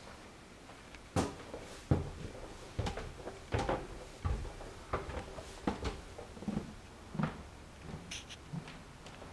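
Footsteps climbing wooden stairs and walking across a hardwood floor: a knock about every three-quarters of a second from about a second in, dying away after about seven seconds.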